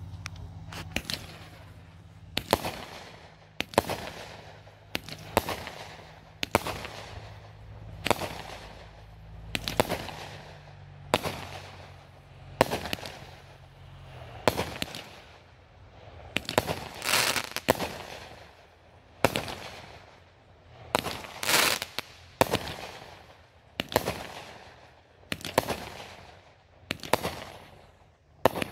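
Aerial fireworks going off shot after shot, a sharp bang about every second and a half, each one dying away quickly, more than twenty in all. A faint low steady hum underneath stops about halfway through.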